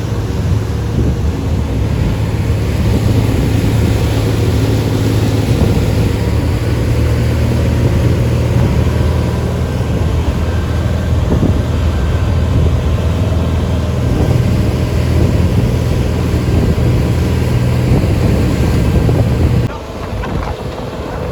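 Boat engine running steadily under way, with wind and water noise. The engine hum drops away abruptly about a second and a half before the end.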